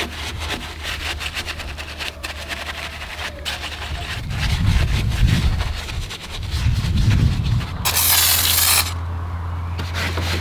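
Detailing brush scrubbing foamed engine-bay parts: wet, scratchy rubbing and scraping strokes. About eight seconds in comes a one-second hiss from a hand pump sprayer.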